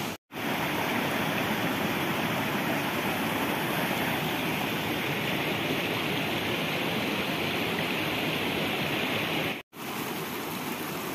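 Stream water rushing and splashing over rocks, a steady, even noise. It cuts out completely for a moment twice, just after the start and near the end.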